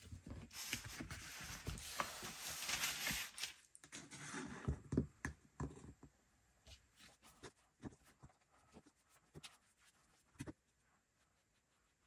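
A brush spreading Mod Podge along the page edges of an old book, a scratchy brushing for the first three to four seconds, followed by scattered light taps and knocks.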